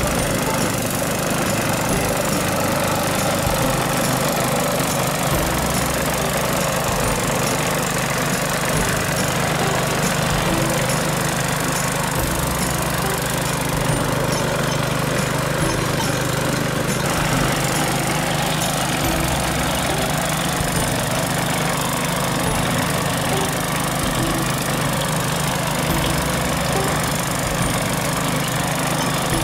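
The 7 HP petrol engine of a walk-behind clipper-type grass cutter running steadily as it cuts through tall grass.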